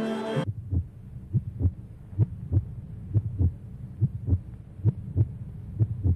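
String music cuts off about half a second in. It gives way to a heartbeat: low double thumps about once a second.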